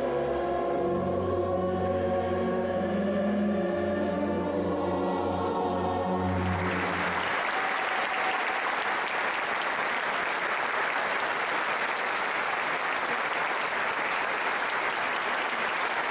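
Large choir with a chamber orchestra holding a chord, which stops about six and a half seconds in. Audience applause then starts and carries on steadily.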